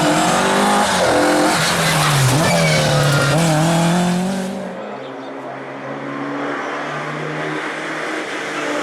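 Rally car engine revving hard, its pitch rising and falling as it is worked through the gears. About halfway through the sound drops abruptly to a quieter, steadier engine note.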